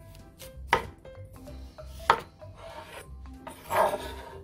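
Chef's knife cutting a raw potato on a wooden cutting board: two sharp knocks of the blade on the board, then the blade rasping through the potato and across the board, loudest just before the end. Soft background music under it.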